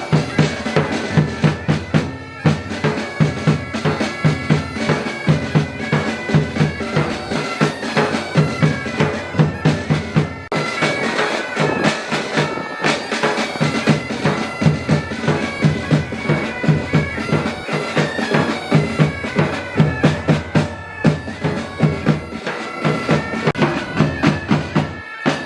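Military pipe band playing: bagpipe melody over the pipes' steady drone, with a steady drum beat underneath.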